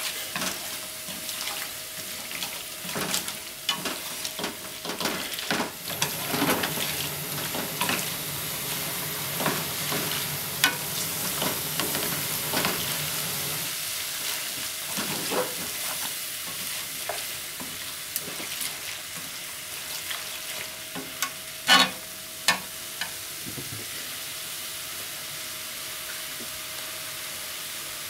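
Noodles and chopped cabbage sizzling steadily in a frying pan while being tossed with chopsticks, with frequent clicks and scrapes of the chopsticks against the pan. A few louder knocks come about 22 seconds in.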